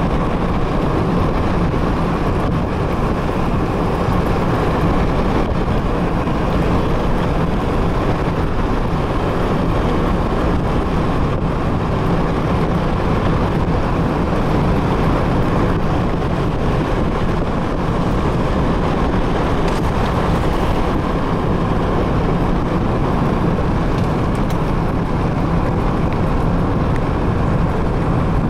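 Steady road and wind noise of a car driving along at a constant speed, heard from the moving car.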